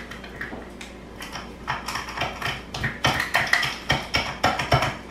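A small folded paper slip being unfolded by hand: irregular crinkling clicks, sparse at first and more frequent from about two seconds in.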